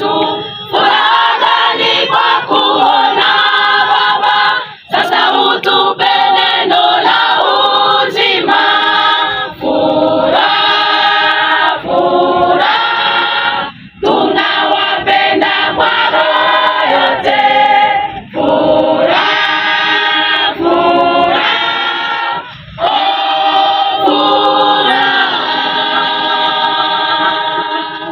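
Women's choir singing unaccompanied, in phrases broken by short pauses every four or five seconds.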